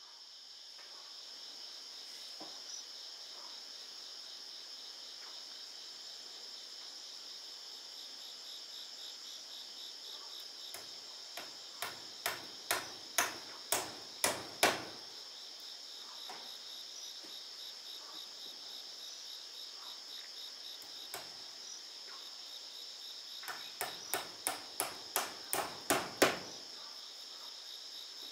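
A hammer driving nails into wooden wall cladding boards: two runs of seven or eight blows, about two a second, each run growing louder toward its last blow. Insects chirr steadily throughout.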